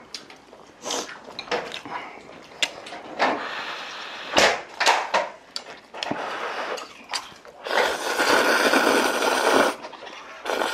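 Tableware sounds during a meal: chopsticks and cutlery clicking and knocking against bowls and plates, irregularly. About eight seconds in comes a noisy stretch lasting about two seconds.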